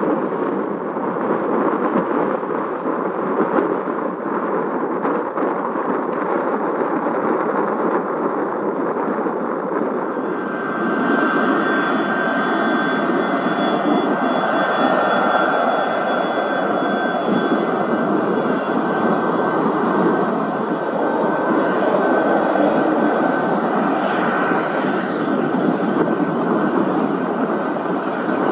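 Aircraft turbine engines running with a steady roar; about ten seconds in, a steady high turbine whine joins it and the sound grows a little louder.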